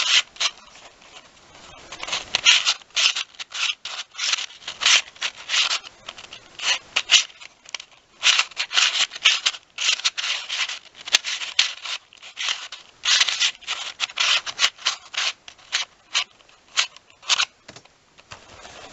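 A Square-1 speed cube being turned fast in a speed solve: its plastic layers click and scrape through twists and slice turns, in quick bursts broken by short pauses.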